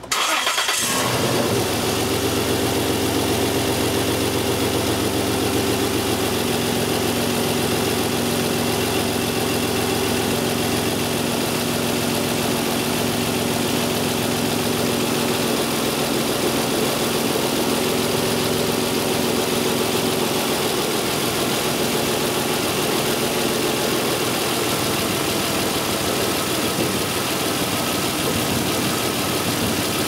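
2002 Isuzu Rodeo's 3.2-litre V6 started up, catching almost at once, then idling steadily, beginning to chug a little near the end. It is running with bank 2 full rich and bank 1 full lean because the two upstream O2 sensor connectors are swapped between banks, so the computer adds fuel to the wrong bank.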